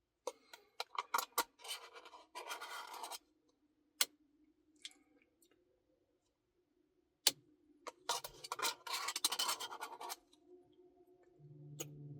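Eating a Dairy Queen Blizzard: bursts of scraping with sharp clicks between, louder about a second in and again about eight seconds in. A soft tune begins near the end.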